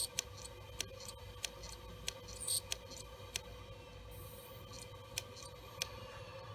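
WD Caviar Blue hard drive's heads clicking repeatedly, the 'click of death' of a failing drive: about nine sharp clicks at uneven intervals, with a pause in the middle, over a faint steady hum.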